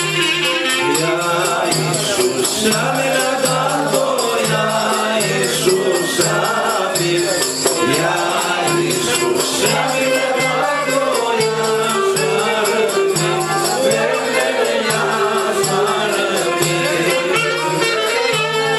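Live Aromanian folk music: a clarinet melody over a steady frame-drum beat, with a man singing into a microphone.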